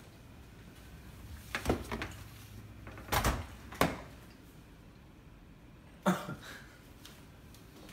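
A handful of short knocks and bumps, about five in all, the loudest about three seconds in and just after six seconds.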